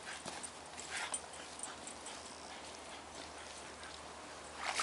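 A few faint splashes and soft steps in a shallow muddy puddle, over a quiet outdoor hiss.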